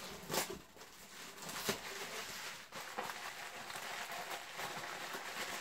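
Faint rustling of padded packing material with a few light clicks, as a glass is taken out of its wrapping.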